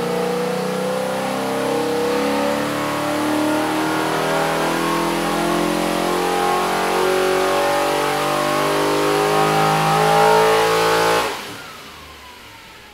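407ci small-block Chevy V8 on an engine dyno, running a loud pull under load with its pitch climbing slowly as the rpm rises. About eleven seconds in, the throttle closes and the revs fall away.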